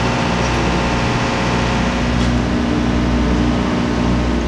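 A machine running with a steady low hum and overtones, unchanging in pitch.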